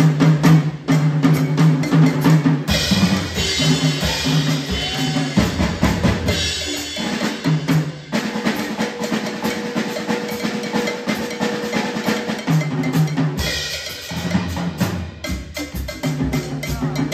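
Afro-Cuban jazz percussion playing together: drum kit with snare and bass drum hits, congas and a wood block, over a low repeating note. Bright cymbal wash comes in three times, about three seconds in, around six seconds and again near thirteen seconds.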